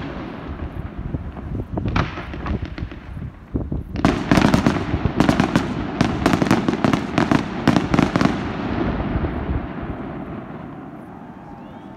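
Fireworks display's closing barrage: scattered booms, then about four seconds in a dense volley of rapid bangs that runs for some four seconds before the reports die away into a fading, echoing rumble.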